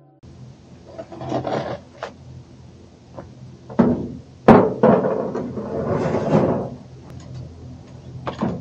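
Gator Grabber leaf grabbers scooping dry leaves and dropping them into a wheelbarrow: uneven rustling and crunching of leaves with knocks of the scoops, the sharpest knock about halfway through.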